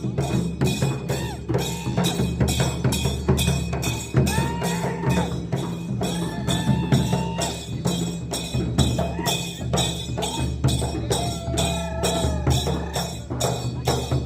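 Upbeat dance music with a fast, steady drum beat and a high melody line weaving over it in short phrases.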